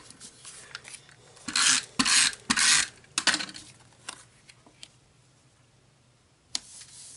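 A hand-held adhesive tape runner drawn in four quick rasping strokes across the back of a cardstock photo mat, with paper handling, then a single sharp tap near the end.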